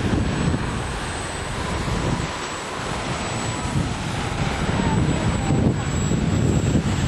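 Radio-controlled model airplane's motor and propeller whining faintly in the air, the pitch drifting a little as it flies past, under heavy wind noise on the microphone.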